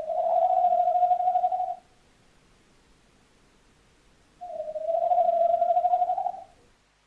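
Tawny owl hooting: two long, slightly wavering hoots of about two seconds each, the second starting about four and a half seconds in.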